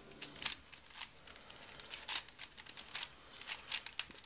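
DaYan Megaminx twisty puzzle being scrambled: quick, irregular plastic clicks and clacks as its faces are turned, several a second. The puzzle is still unlubricated.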